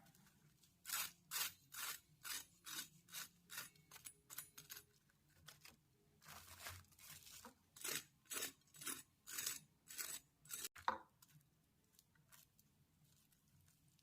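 A faint run of short rasping strokes, about two a second, with a lull in the middle, stopping about eleven seconds in.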